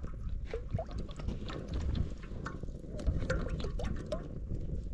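Cooking oil poured in a thin stream from a plastic jerrycan into a metal cooking pot, over a low rumble and scattered small clicks.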